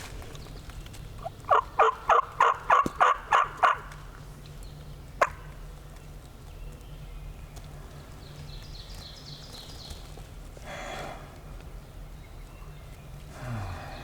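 Wild turkey yelping: a quick run of about nine loud notes, with a single sharp click a second and a half later.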